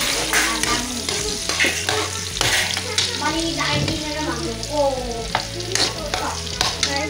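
Food frying and sizzling in a pan while a cooking utensil stirs it, with frequent sharp clicks and scrapes of the utensil against the pan.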